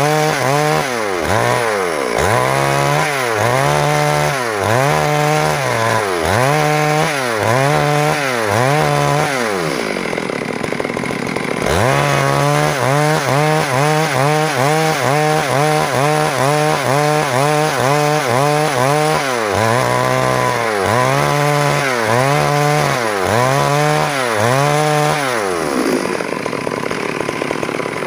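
Stihl MS382 two-stroke chainsaw ripping a log lengthwise. The engine pitch repeatedly sags under load and climbs back, about once every second or so, as the bar is worked through the cut. Near the end it drops to a lower, steadier running.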